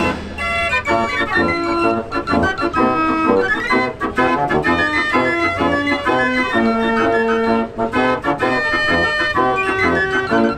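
49-key Marenghi fair organ playing a tune, its pipes sounding melody and chords over a sustained bass.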